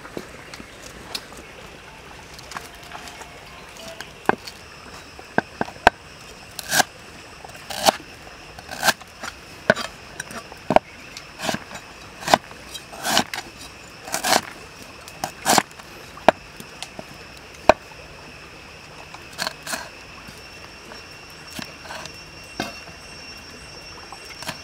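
A cleaver chopping lemongrass, galangal and chilies on a wooden chopping board: a string of sharp knocks about once a second, thickest in the middle and thinning out toward the end.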